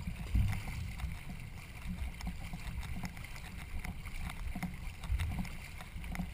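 Canoe paddling: paddle blades stroking and splashing in the water in an uneven run of short strokes, over a steady low rumble.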